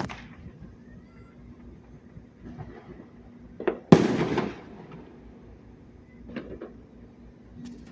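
Fireworks going off: a few scattered pops, then one loud sharp bang about four seconds in with a short trailing rumble.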